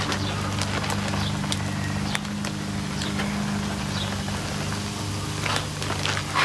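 A steady low engine-like hum runs throughout, with a few light clicks and scrapes of a metal chopper on the steel top of a griddle.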